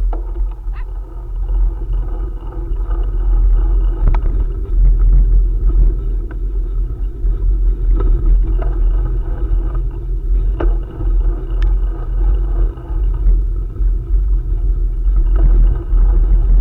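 Bicycle ridden along a forest trail: a steady low wind rumble on the microphone with tyre rolling noise and a few sharp clicks.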